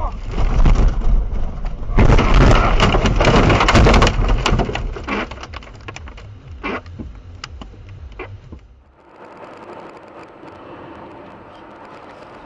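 A car crashing off the road into snow and brush: a heavy rumbling impact with snapping branches and scraping against the body, loudest between about two and four seconds in, then dying away with scattered cracks. After an abrupt change about nine seconds in, steady road and tyre noise inside a moving car.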